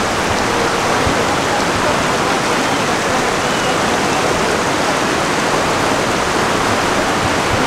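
Neelum River's fast water rushing over rocks: a loud, steady rushing noise.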